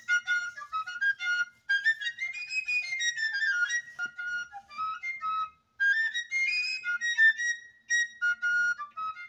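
A high-pitched flute playing a melody in short phrases, with brief breaks between them.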